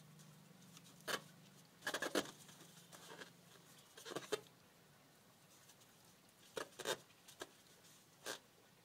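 Latex balloon squeaking and scraping in short sharp rubs as a ferret paws, bites and climbs on it: about eight of them, with a quick cluster around two seconds in, over a faint low hum.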